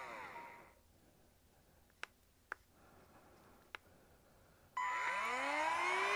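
DSPIAE HC-V handheld cordless vacuum switched off, its motor whine falling as it spins down, then three light clicks. Near the end it is switched on again, its whine rising as the motor spins up.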